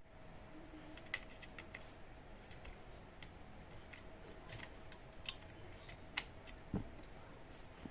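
Faint, irregular clicks and light taps of a screwdriver and small metal parts as two screws are taken out of a doorbell's coil holder, with one duller knock near the end.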